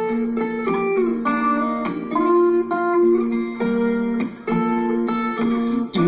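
Instrumental break of a song: a plucked guitar riff playing a repeating run of notes, with no singing.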